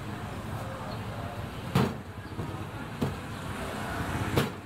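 Hand-pulled noodle dough slapped down onto the work counter twice, about two and a half seconds apart, with a lighter knock between. Steady street traffic noise underneath.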